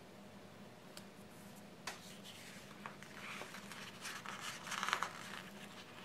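Sticker paper being handled and pressed onto a planner page: a few light taps and clicks, then a crinkly rustle of paper that builds and is loudest about five seconds in.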